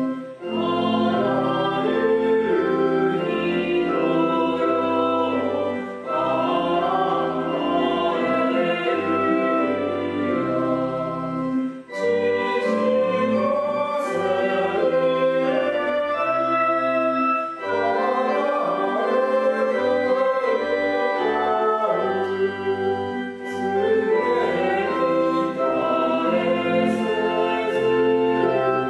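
A hymn sung to organ accompaniment: voices over sustained organ chords and a held bass line, moving in phrases with short breaks between the lines.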